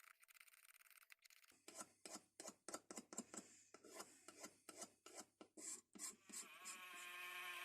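Rhythmic hand strokes rasping on metal, about three a second, like filing or scrubbing rust off a pair of pliers. A steady hum with several tones comes in near the end.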